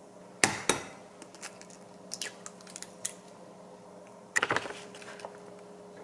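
Kitchen prep knocks and clatters of a glass mixing bowl and wooden spoon on a countertop: two sharp knocks about half a second in, a few light clicks, then a quick cluster of knocks just past four seconds. A faint steady hum runs underneath.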